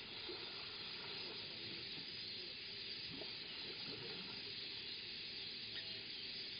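Steady outdoor ambient hiss, with a few faint soft knocks and one brief chirp near the end.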